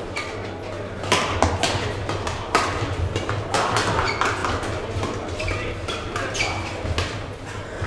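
Badminton rally: sharp cracks of rackets striking the shuttlecock at irregular intervals, with short squeaks of shoes on the court mat between them.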